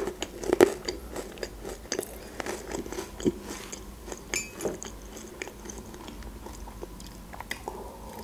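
Close-miked chewing of a Raffaello coconut-almond sweet, with many small wet clicks and crunches. The chewing thins out after about five seconds.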